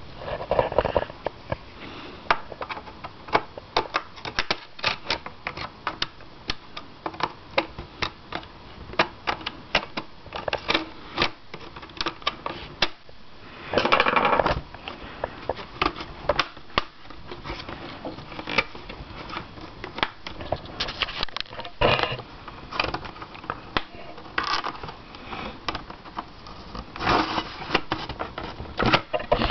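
Plastic LCD bezel of a Toshiba Tecra 9100 laptop being pried off with a screwdriver: many small, irregular clicks and snaps of tool and plastic, with a few short stretches of scraping and handling noise.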